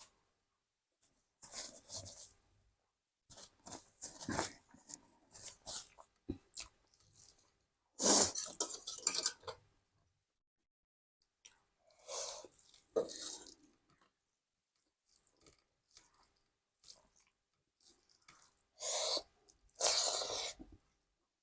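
Close-miked eating: chewing and crunching mouth noises in irregular bursts with short pauses, loudest about 8 seconds in and again near the end.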